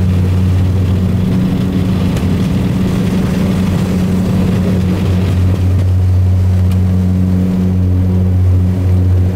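Saab 340's twin General Electric CT7 turboprop engines and propellers at takeoff power, heard from the cockpit during the takeoff roll and rotation. A loud, steady, low propeller drone with a constant pitch and hiss over it.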